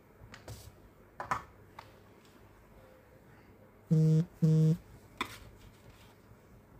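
Two short electronic beeps about half a second apart, each a steady low tone that starts and stops sharply. A few light taps and handling clicks come before them.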